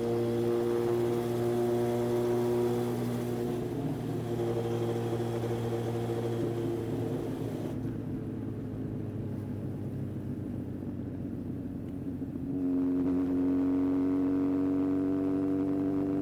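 Yamaha XJR1300's air-cooled inline-four engine running steadily; the sound drops back partway through, then grows louder again about twelve seconds in, its pitch slowly rising.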